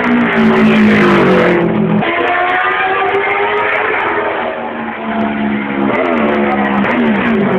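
Vintage racing motorcycle engines running hard as the bikes go by along the road, their pitch rising and dropping several times.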